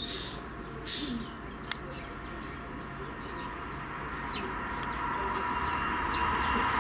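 Birds chirping in short high calls, with cooing among them. Underneath, a steady rail hum grows louder over the last few seconds as a train approaches.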